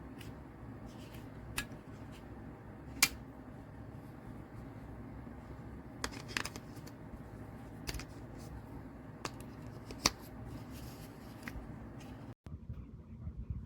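Scattered sharp clicks, about ten, irregularly spaced, from the buttons of a plastic TV remote control being pressed, over a steady low hum.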